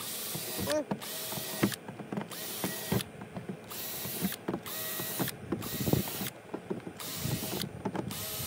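Cordless drill running in repeated short bursts, about one a second, boring holes through a gear track's mounting holes into a plastic kayak deck.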